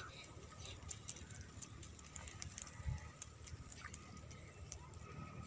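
Quiet outdoor ambience with faint bird calls, and soft water sounds as a cast net is hauled in through the water of a pond.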